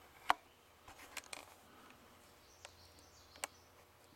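Quiet background with a faint steady low hum and a few short, sharp clicks, the sharpest about a third of a second in.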